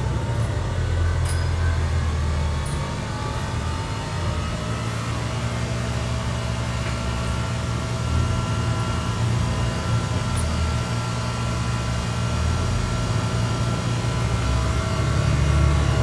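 Transit bus heard from inside the cabin while driving: a steady low engine and road rumble with several thin, steady whining tones over it, one more whine joining about halfway through. These are the weird noises this bus is filmed for.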